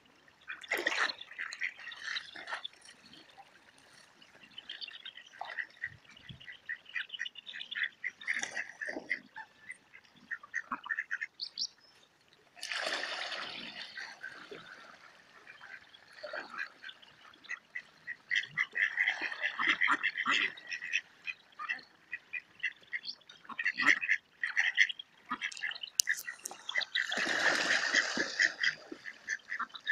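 Flock of ducks quacking and chattering in quick runs of calls, with two louder rushes of noise, about a third of the way in and near the end.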